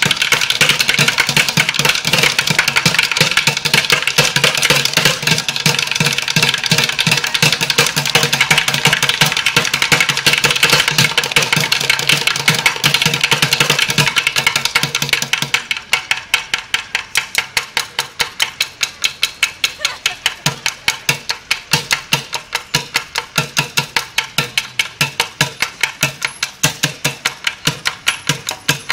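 Upturned plastic buckets drummed with sticks by a street drummer. He plays a fast, dense, loud rapid-fire rhythm for about fifteen seconds, then drops to a quieter, steady beat of about four strikes a second.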